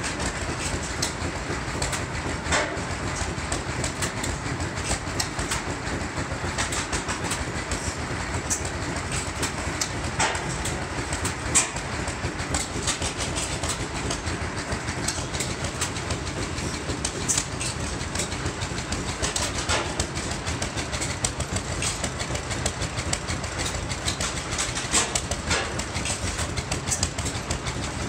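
Antique hit-and-miss gas engines running: a steady, rapid mechanical chuffing and clatter, with a few sharper clicks standing out now and then.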